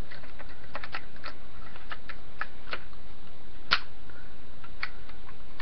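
Parts of a Tippmann A5 paintball marker and its tactical conversion kit being handled and readjusted by hand: scattered small clicks and taps, one sharper click about two thirds of the way through, over a steady faint hiss.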